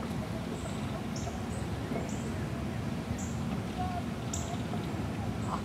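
Open-air background with a steady low rumble and faint distant voices, over which a small bird gives short high chirps, about seven of them at irregular intervals.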